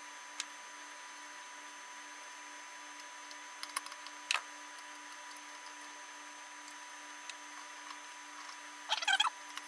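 Small clicks and taps of a screwdriver and parts being handled as a stepper driver board is put back together, over a steady faint electrical hum. Near the end, a short burst of squeaky scraping.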